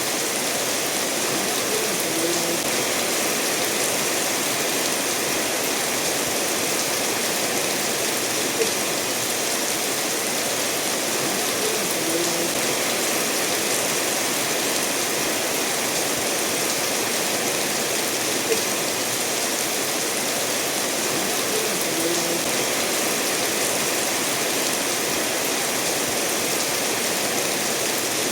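Steady rainfall mixed with a stream running over stones, an even hiss of water with a few louder single drips now and then.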